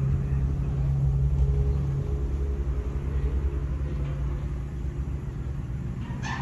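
Diesel locomotive engine running with a steady, deep rumble and a low hum.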